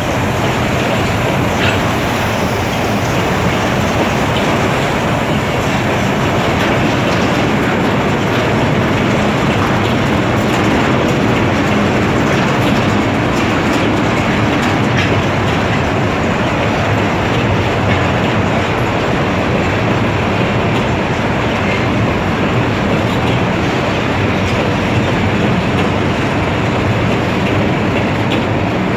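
Freight boxcars of a metre-gauge train rolling past: a steady rumble of steel wheels on the rails, with occasional clicks as the wheels cross rail joints.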